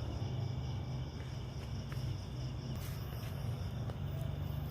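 A steady low machine hum, with a faint steady high-pitched tone above it and a few faint clicks.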